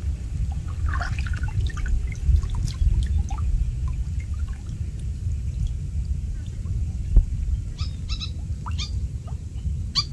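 Water trickling and dripping from a wet cast net as it is lifted and gathered by hand in waist-deep stream water. A single sharp thump comes a little after seven seconds.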